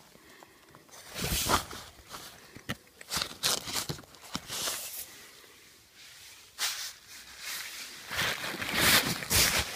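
Rustling and scraping of thin tent fabric and mesh brushing against the handheld camera, in irregular bursts with a few small clicks, loudest near the end.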